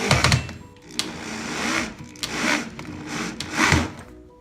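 Electric drill driving screws to fasten speakers into a speaker box: the motor whirs in several short bursts as each screw is run in and tightened.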